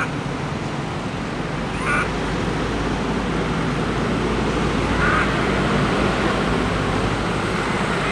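Baby macaque crying in short, sharp calls, about four of them a couple of seconds apart, over a steady low rumble of distant traffic.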